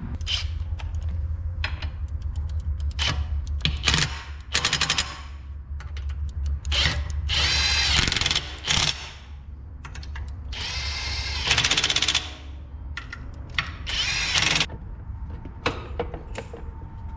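Cordless power drill run in several short bursts of rapid clicking and whirring, driving the bolts that hold a torque converter onto a small kart engine, with scattered knocks of tools and parts between the bursts.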